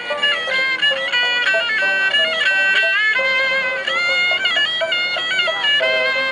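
Chiptune-style electronic music: a bright, buzzy synth lead playing quick notes that jump between flat, steady pitches.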